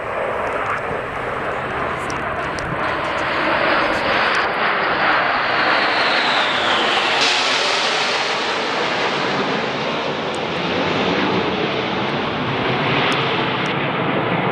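Formation of Red Arrows BAE Hawk jets flying past overhead: a broad jet roar that builds over the first few seconds and stays loud. A falling whine about halfway through marks the pass.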